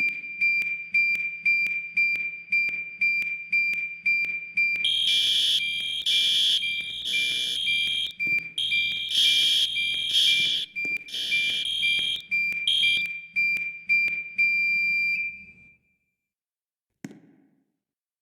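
School fire alarm sounding: a steady high tone with sharp strokes about twice a second, joined from about five seconds in by a second, louder alarm sounding in short bursts. Both cut off about fifteen seconds in, followed by a single brief sound.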